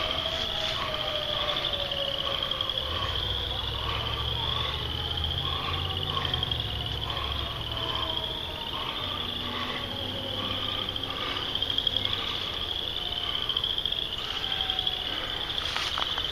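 Insects calling outdoors in repeated rising buzzes, about one a second, with a faint distant siren sliding down in pitch over the first few seconds and a low rumble underneath.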